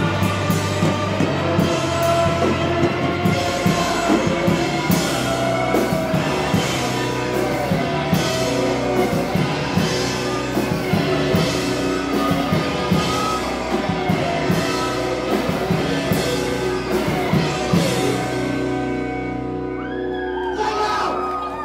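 A rock band playing live: a drum kit with regular cymbal hits over electric guitars and bass. Near the end the drums stop and sliding guitar tones are left ringing.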